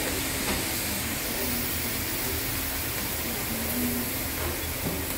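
Steady hibachi restaurant din: a low rumble and even hiss, with faint voices now and then.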